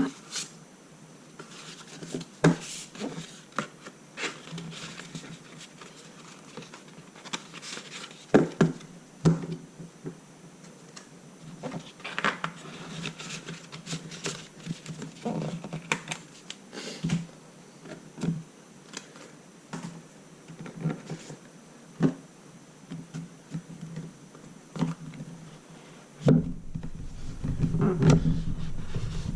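Box, packaging and device being handled during an unboxing: irregular clicks, taps and scrapes, growing into denser rustling and rubbing near the end.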